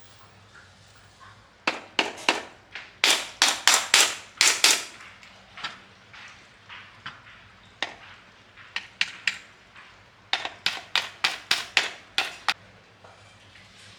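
Hammer blows on metal, sharp and ringing. A quick run of about a dozen strikes at roughly three a second comes early, then a few lighter taps, then a second run of about eight faster strikes near the end.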